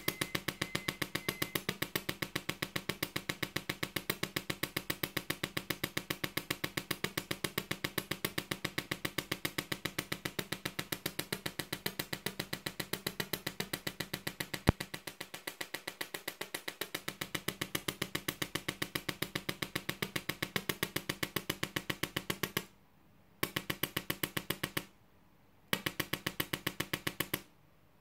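Miniature QCW solid-state Tesla coil firing short sparks as a rapid, evenly spaced train of sharp pops, one per interrupter beat, over a steady low hum. The sparks stop briefly three times near the end.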